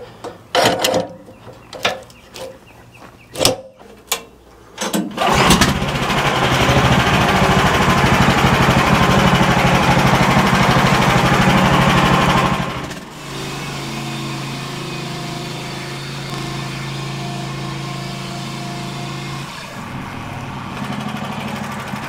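Gasoline engine of a portable bandsaw mill starting after a few clicks and knocks. It catches about five seconds in, runs loud for about seven seconds, then drops to a quieter, steady hum.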